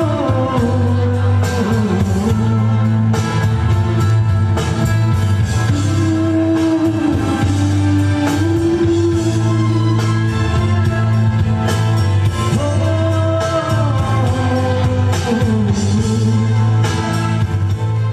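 A man sings held, bending notes through a handheld microphone and PA. Behind him plays an instrumental accompaniment with a steady bass and a regular drum beat.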